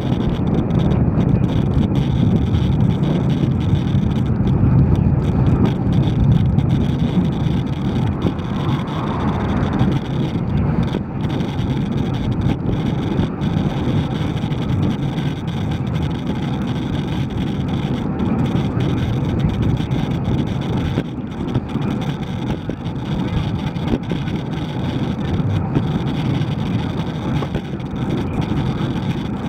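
Steady rush of wind and road noise from a bicycle ridden along a road, with motor traffic in the mix.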